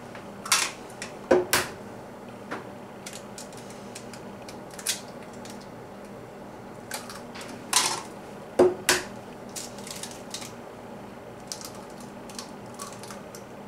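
Eggs being cracked and opened over a glass measuring cup of vegetable oil: scattered sharp taps and clicks of shell, in a few clusters, the loudest near the start and again about eight seconds in.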